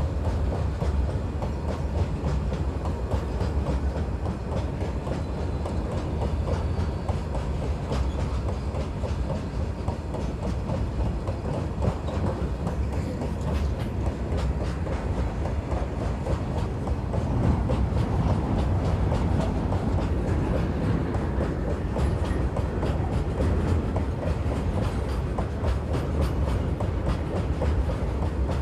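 Freight train of empty BOXNHL open wagons rolling past at speed, the wheels clicking steadily over the rail joints over a low rumble. It gets a little louder about halfway through.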